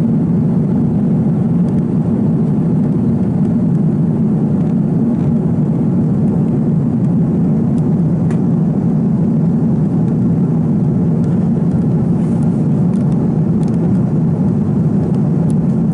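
Steady cabin noise of an Airbus A330 airliner in flight, heard from a window seat over the wing: a constant deep rush of engine and airflow noise.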